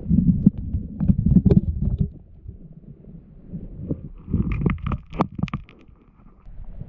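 Muffled underwater rumble of a fast-flowing river heard from a camera below the surface, with sharp clicks and knocks as hands work among the rocks. It comes in two louder spells, one at the start and one about four seconds in.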